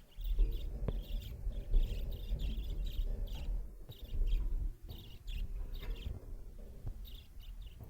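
Budgies chirping, a quick run of short chirps, over a low steady rumble.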